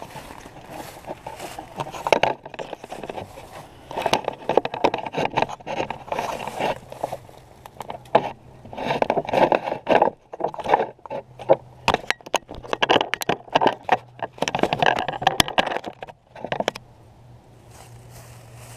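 Footsteps crunching through dry leaf litter in irregular bursts, with scraping and crackling as a thick Lexan panel is carried and handled. Near the end it settles into a quiet stretch.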